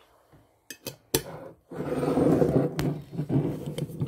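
Handling noise: a few light clicks, then from about two seconds in a loud, steady rubbing and rustling as the phone is moved about.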